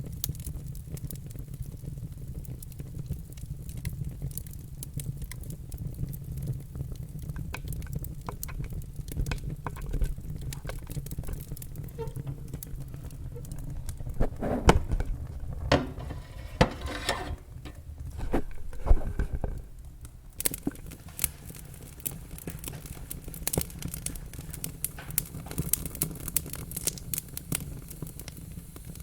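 Wood fire crackling: a steady low rumble of flames with scattered sharp pops, and a denser run of louder pops about halfway through.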